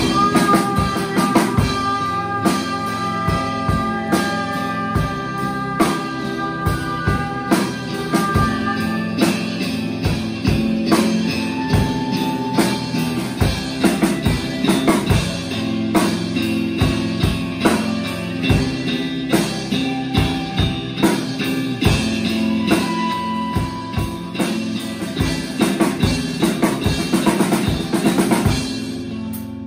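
Live rock band playing: a drum kit hitting steadily under sustained guitar chords. About a second before the end the drums stop and the chord is left ringing.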